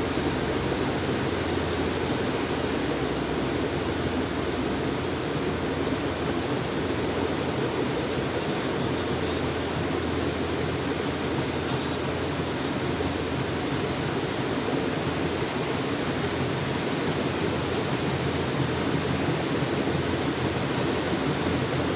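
Rail motor trolley running along the track inside a rail tunnel: a steady, even running noise that does not let up.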